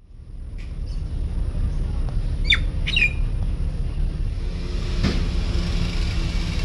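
Two short, harsh bird squawks about half a second apart over a steady low rumble, with a single knock a couple of seconds later.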